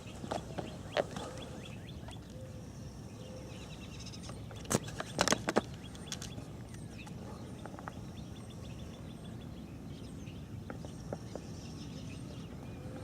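Outdoor background: a steady low rumble with faint bird chirps, and a few sharp clicks, the loudest a quick cluster about five seconds in.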